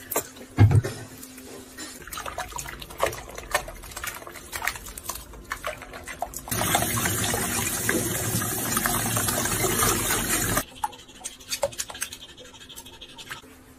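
Water splashing and sloshing in a sink basin while a small puppy is washed by hand, with a tap running steadily for about four seconds in the middle.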